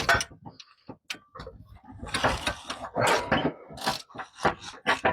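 Irregular metallic clicks, knocks and clatter of hand tools working on the engine. They come thickest in a run of clattering from about two to four seconds in, while a spark plug is being worked loose.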